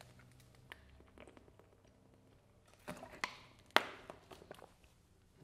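Faint taps and knocks from a person moving about and handling things, a handful of them bunched between about three and four and a half seconds in, the sharpest near four seconds; otherwise quiet room tone.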